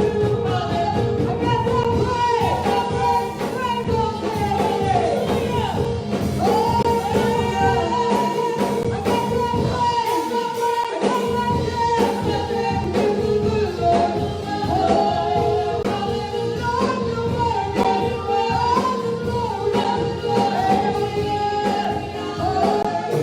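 Church worship music: a singing voice carrying a melody over steady instrumental backing.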